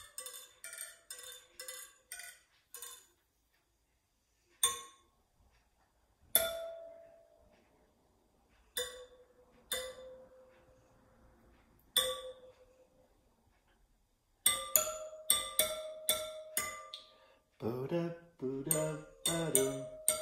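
Bicycle wheel spokes tapped with a metal tube, each tap a short metallic ping that rings and fades like a glockenspiel note. There is a quick run of notes at first, then a few single taps a second or two apart, then a fast run of taps from about two-thirds of the way through.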